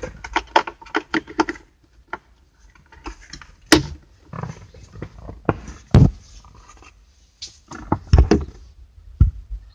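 A quick run of clicks, then several separate sharp knocks and thuds a couple of seconds apart, like parts being handled and bumped.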